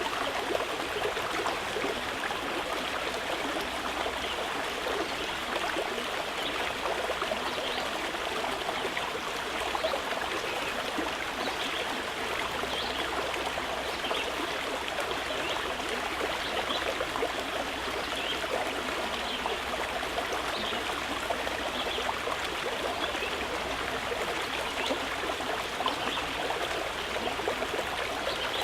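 Running water flowing steadily, an even rush with many small trickles and splashes.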